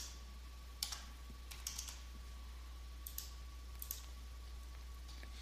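Computer keyboard keystrokes and mouse clicks, a few single clicks scattered about a second apart, over a faint steady electrical hum.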